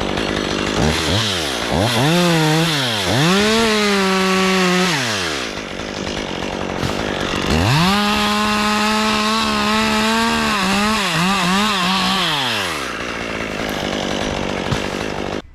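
Two-stroke chainsaw revved to full throttle twice, each time holding a high steady whine for a few seconds before dropping back, with the engine running lower between the two bursts.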